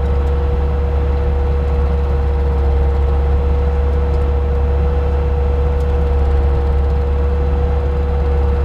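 Bobcat T300 track loader's diesel engine running steadily, driving a Bobcat SG60 hydraulic stump grinder, with a steady whine over a low drone.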